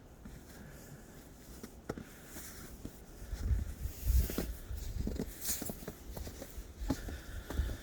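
Irregular crunching footsteps in snow, with wind rumbling on the microphone in gusts from about three seconds in.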